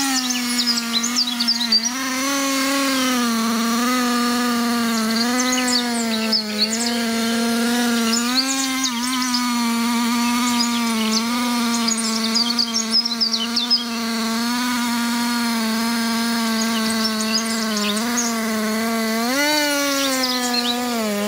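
Chainsaw running at high revs through a cut, its pitch dipping and recovering under load and rising briefly near the end, with birds chirping over it.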